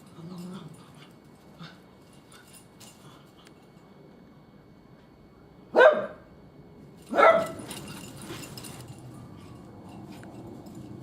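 A poodle barks twice, about a second and a half apart, with faint clicks between the barks.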